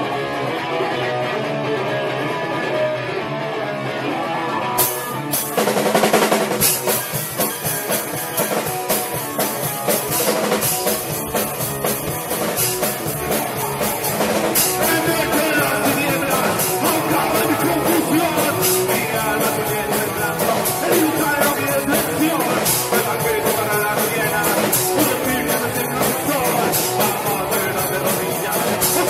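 Rock band playing live in a rehearsal studio: two guitars, bass and drum kit. Guitar opens alone, and the drums with cymbal crashes and the rest of the band come in about five seconds in.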